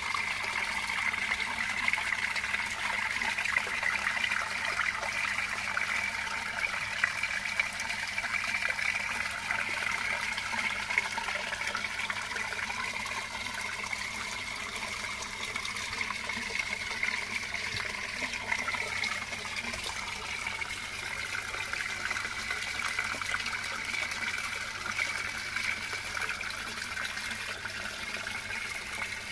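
Water splashing and trickling steadily onto the surface of a 400-litre plastic koi tub.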